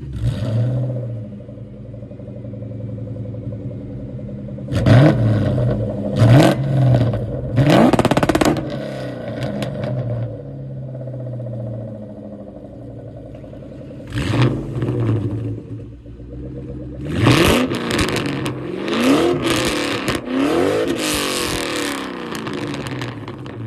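Supercharged 4.6 L DOHC V8s of 2003–04 Ford Mustang SVT Cobras idling and being revved in quick blips through aftermarket exhausts, each rev rising and falling fast. First a car with an off-road H-pipe and Magnaflow cat-back, blipped about three times about five seconds in. Then, after a change about fourteen seconds in, one with a Bassani off-road X-pipe and Borla ATAK mufflers, revved several times in a row.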